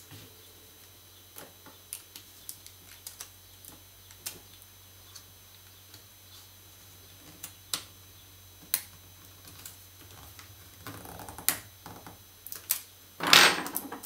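Light, irregular clicks and taps of tweezers and fingertips on the opened tablet's logic board and flex-cable connectors, with a louder short scraping rustle near the end.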